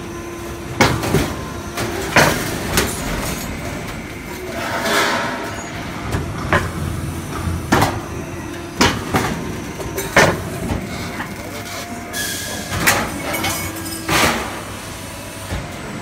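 Sheet-metal duct-making machinery running with a steady hum, broken by about a dozen sharp, irregular metallic clanks and bangs of galvanized steel sheet and duct sections.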